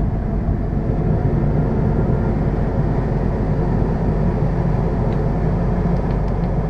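Ford 6.0-liter Power Stroke turbo diesel V8 idling steadily, heard from inside the cab, with the climate-control fan blowing.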